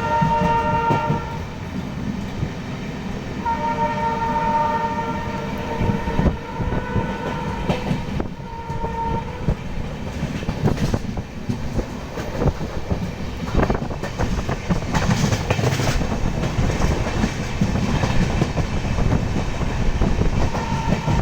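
A train running through a railway station, a steady low rumble with wheel clatter, while the locomotive's horn sounds: a short blast at the start, a longer one of two to three seconds about four seconds in, and a shorter one about eight seconds in.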